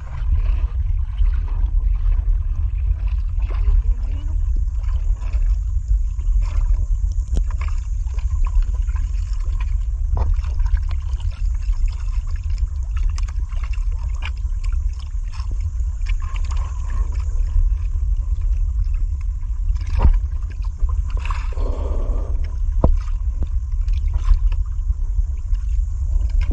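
Steady low rumble of wind buffeting the microphone, with water splashing against the side of an outrigger fishing boat and scattered small knocks.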